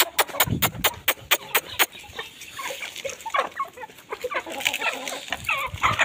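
A flock of domestic chickens clucking as they gather for scattered grain at feeding time. In the first two seconds there is a quick run of about ten sharp clicks.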